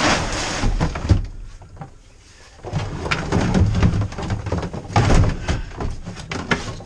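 A wooden plank used as a loading ramp slid into a van's plywood-lined cargo floor, scraping and ending in a knock about a second in. After a short pause comes a run of clatters and thumps as things are shifted about in the van.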